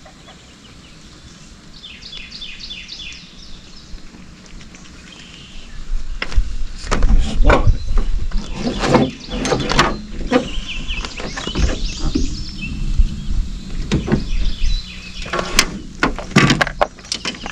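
A small bird sings in quick repeated note-runs for the first few seconds. From about six seconds in there is a run of knocks, clatters and low thumps as fishing gear is handled in a small boat, with more clicks near the end as a plastic tackle box is opened.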